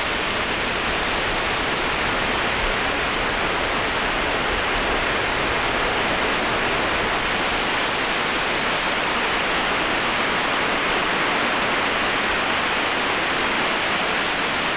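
A steady rushing hiss at an even, loud level, unchanged throughout.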